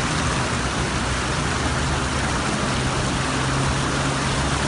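A vehicle driving through deep floodwater: a steady low engine hum under the continuous rush and splash of water thrown up around the wheels.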